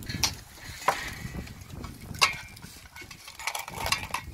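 A few sharp clinks and knocks of tableware, shells and utensils being handled at a meal table. The loudest comes about two seconds in, with a brief ring. A low rumble sits underneath.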